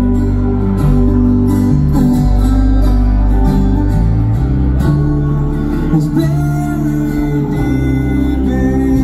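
Live folk-bluegrass string band playing through a PA: strummed acoustic guitar and sung vocals over a heavy, steady bass.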